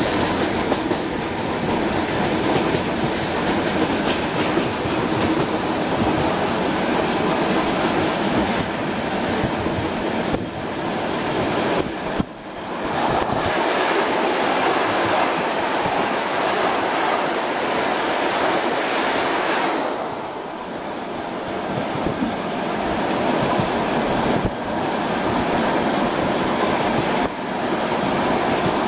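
ER2R electric multiple unit running at speed, its wheels rumbling and clattering steadily over the rails. Around twelve seconds in, a red train passes close on the next track, bringing a louder rush of noise for several seconds.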